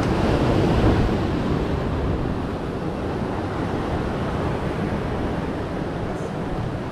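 Sea surf breaking and washing against the rocks of a jetty, with wind on the microphone; a little louder in the first second or two, then steady.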